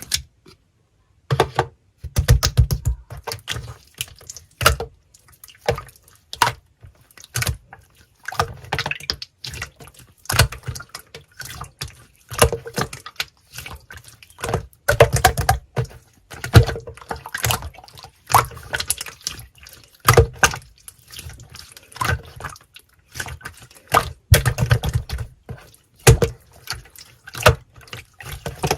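Irregular wet clicks, drips and squelches, several a second, with no speech.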